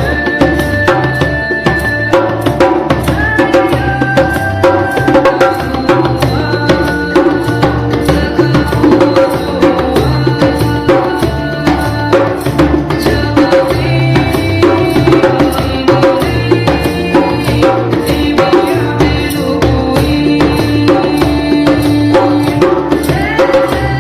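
Djembe played by hand in a steady, dense rhythm, accompanying a Huni Kuin forest song with held melodic notes over it.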